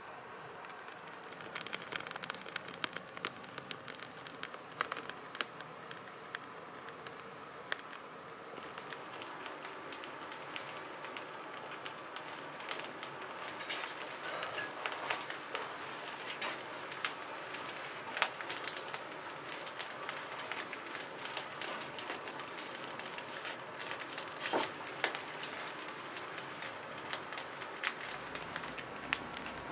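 Wood fire burning in a brick firebox: a steady hiss of flame with frequent sharp crackles and pops.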